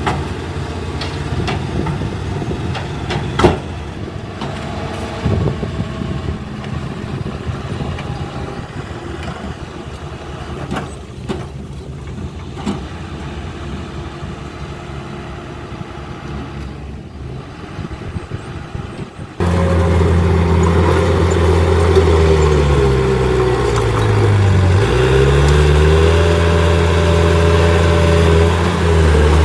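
Heavy diesel construction machinery running. First a quieter engine with a few sharp knocks; then, after an abrupt cut about two-thirds of the way through, a much louder engine whose pitch sags down and climbs back up as it takes load.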